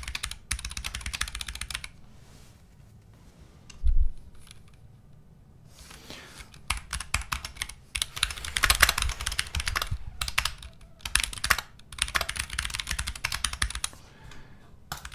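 Rapid typing on a computer keyboard in two bursts of quick key clicks, with a pause of a few seconds between them. During the pause, about four seconds in, there is a single low thump.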